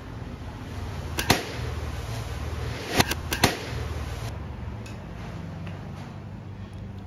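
Small recurve bow with steel limbs cut from a shovel, shooting arrows: sharp snaps of the string releasing and arrows striking the target, a pair of them about a second in and a quick cluster about three seconds in, over a steady low hum.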